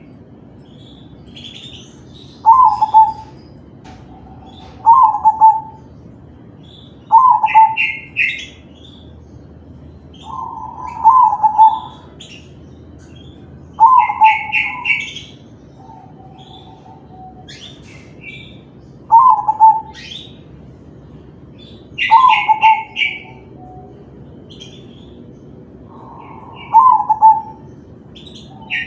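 Zebra dove (perkutut, a crossbred bird) cooing in short phrases every two to three seconds. Quick higher chirping trills come in between.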